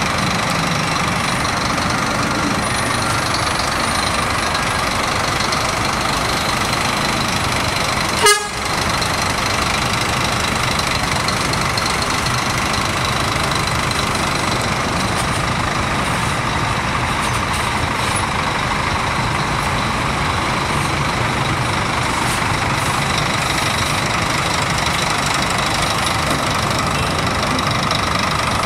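Scania K410 bus's rear-mounted 13-litre six-cylinder diesel running steadily close by. About eight seconds in comes one brief sharp click.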